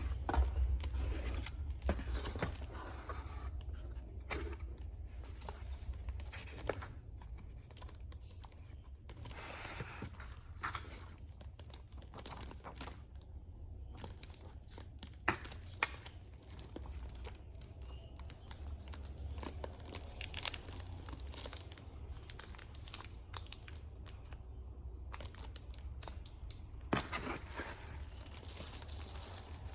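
Packaging being torn open and crinkled by hand: rustling and crackling with scattered sharp rips, over a steady low hum.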